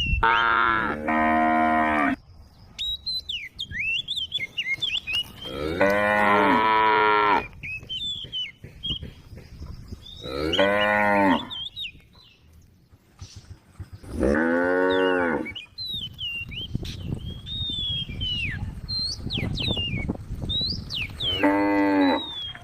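A cow mooing, about five long, loud calls a few seconds apart. High chirps can be heard between the calls.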